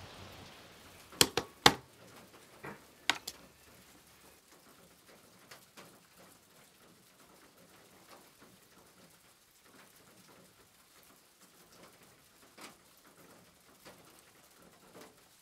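A few sharp taps and clicks in the first few seconds, then faint scattered ticks: hands handling stickers and sticker packs on a wooden tabletop.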